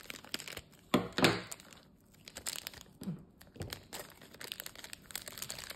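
Thin black plastic blind bag crinkling as it is snipped with scissors and pulled open by hand, with scattered crackling rustles; the loudest rustle comes about a second in.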